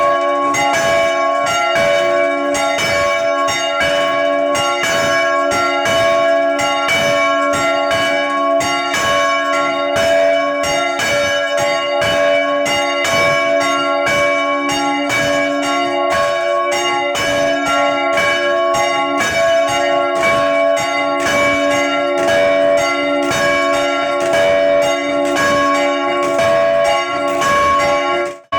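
Church bells swinging and ringing together, their clappers striking in a steady, continuous peal of overlapping strokes; the bells are swung by an electric paddle-type drive. The ringing breaks off for an instant near the end.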